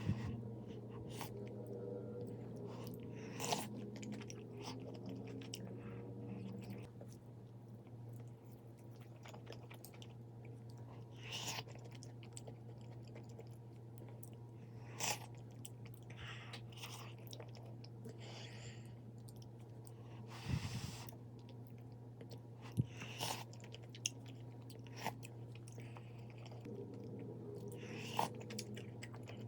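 A person chewing food close to the microphone, with scattered sharp crunches and clicks over a steady low hum.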